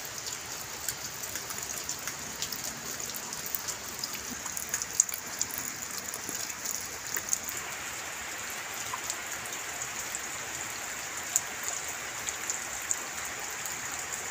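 Steady rain falling, with many scattered drops ticking close by.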